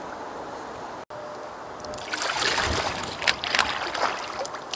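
Canoe paddle stroking through the water: splashing and dripping from the blade, starting about two seconds in, after a steady rush of wind on the microphone.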